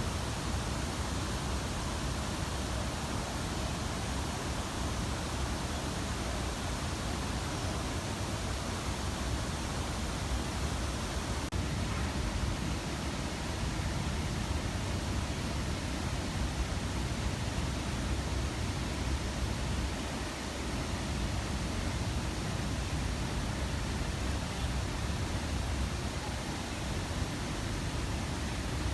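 Steady rushing and splashing of water falling from an artificial waterfall, a constant full rush with no breaks.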